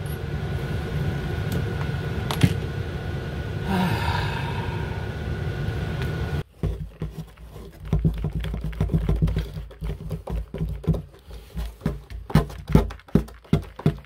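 A steady background hum, then, about six seconds in, a run of small irregular clicks and creaks as a hand screwdriver drives a screw through a metal push-catch latch into the wooden drawer. The clicks come faster near the end.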